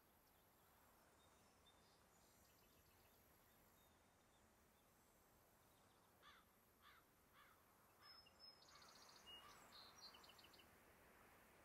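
Near silence: faint outdoor background with distant birds. A run of five short calls about half a second apart comes about six seconds in, then high chirping near the end.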